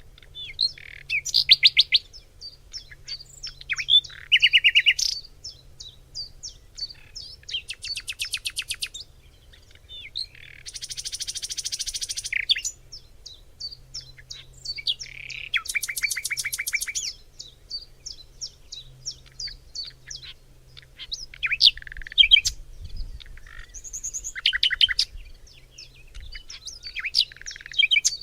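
Several songbirds singing and calling together in a forest chorus: a steady run of quick high chips, broken by rapid trills, one of them longer and buzzy about eleven seconds in.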